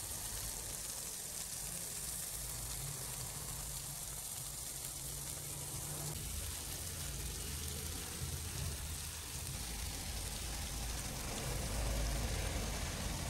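Oil sizzling steadily around a whole masala-coated fish frying on a flat griddle (tawa), with a low rumble underneath.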